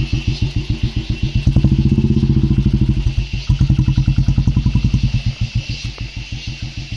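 Motorcycle engine idling with an even pulse of about ten beats a second, revving up briefly about one and a half seconds in and dropping back to idle a couple of seconds later.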